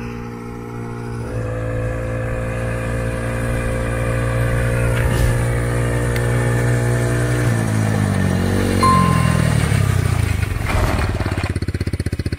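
Mini buggy's motorcycle-type engine running at a steady pitch, then changing pitch as it slows and settling into a fast, pulsing idle near the end. A brief ding sounds about nine seconds in.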